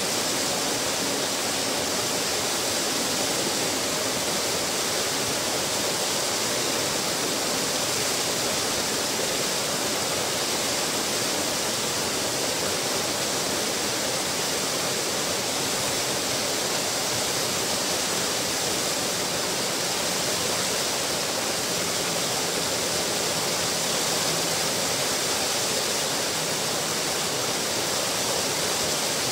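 Small waterfall spilling over a stone ledge into a pool below: steady splashing of falling water.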